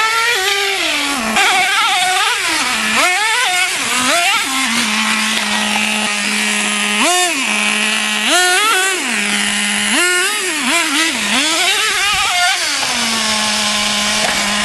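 Traxxas T-Maxx 2.5's small nitro two-stroke engine revved in repeated short blips of throttle, each a rising then falling whine, dropping back between them to a steady idle, with longer spells of idle midway and near the end.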